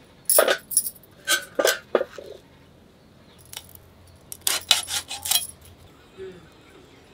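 Dry fish being cut against the curved blade of an aruvamanai, a traditional fixed floor blade: short crisp scraping strokes, about five in quick succession in the first two seconds, then another quick run of about five a little past the middle.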